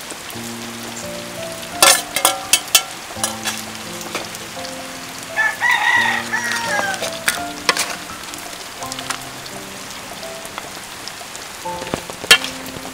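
A metal ladle clinks and scrapes in a wok of frying mantis shrimp, with a faint sizzle, over soft background music. A rooster crows once, about five and a half seconds in, its call falling in pitch at the end.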